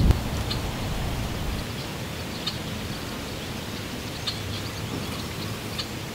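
Wind buffeting the microphone with a low rumble that dies away about a second and a half in. After that an even outdoor hiss remains, with faint, short high chirps scattered through it.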